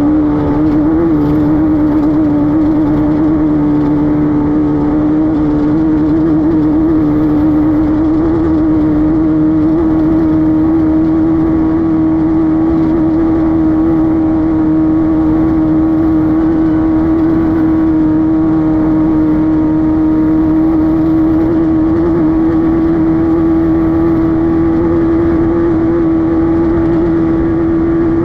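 Air-cooled Volkswagen flat-four engine of a Class 5-1600 off-road race car running hard at a steady, held pitch, with only a slight waver about a second in.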